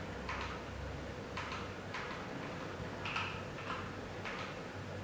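Single key presses on a Keychron K8 mechanical keyboard: separate clicks about half a second to a second apart, as keys are pressed one at a time to step through the backlight lighting effects.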